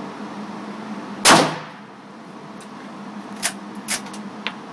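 A single rifle shot from a scoped, bipod-mounted rifle about a second in, echoing off the walls of an indoor range. Three short metallic clicks follow about two to three seconds later as the rifle's action is handled.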